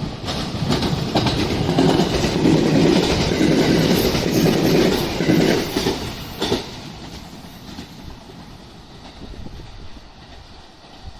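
Electric commuter train moving past on the line, its wheels clattering over the rail joints in quick rattling clicks over a heavy rumble. Loud for about the first six seconds, with one last sharp clack, then it dies away to a low fading rumble.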